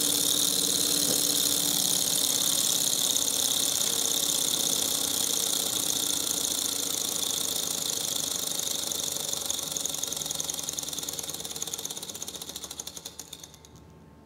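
Miniature hot-air Stirling engine running fast with a dense, high, rapid clatter from its piston and flywheel. It slows and fades over the last few seconds and stops about thirteen and a half seconds in.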